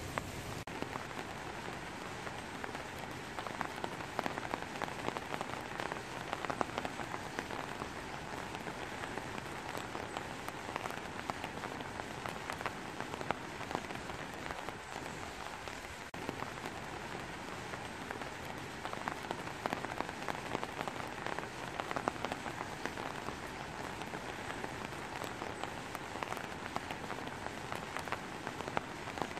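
Steady rain falling on trees and foliage: a dense, even patter of countless drops.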